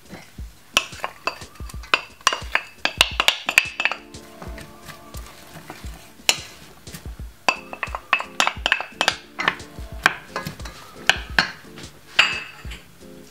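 Chopped onions are tipped from a glass bowl into a stainless steel pot and stirred with a wooden spoon, making many quick clicks, knocks and scrapes against the metal. Background music with a steady beat plays underneath.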